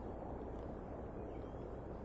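Steady low outdoor rumble, with a few faint, short, high bird chirps over it.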